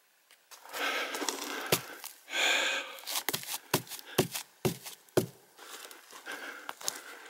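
Scraping and rustling as a hand rubs the soft, fibrous bark of a giant sequoia, then a run of footsteps on the forest floor, about two steps a second.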